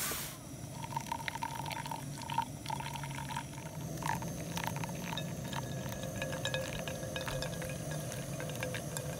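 Hot water poured in a thin stream from a kettle onto ground coffee in a paper drip-bag filter, with small splashes and clicks.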